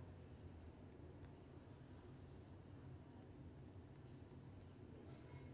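Near silence: low room hum with a faint, short high chirp repeating about every three-quarters of a second.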